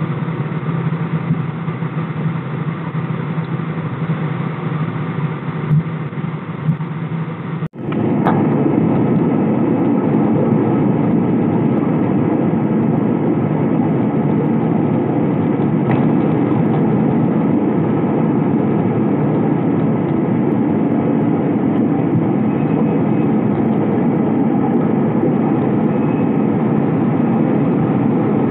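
Jet airliner cabin noise aboard an AirAsia Airbus A320. At first there is a steady hum with a low drone while the plane is on the ground. After an abrupt cut about eight seconds in comes a louder, fuller steady rush of engine and air noise as the plane climbs out after takeoff.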